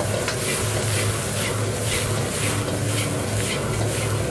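Gas wok burner running on high flame with a steady low roar, while a wok of Chinese chives is tossed, giving short sizzling hisses about twice a second.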